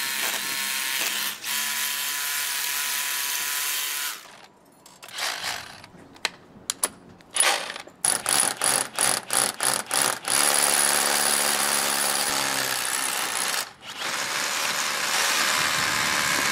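Cordless SDS-plus rotary hammer drilling a masonry bit into soft, loose brick. It runs steadily, stops about four seconds in, gives a run of short trigger pulses at about three a second from eight to ten seconds, then drills steadily again with one brief stop near fourteen seconds.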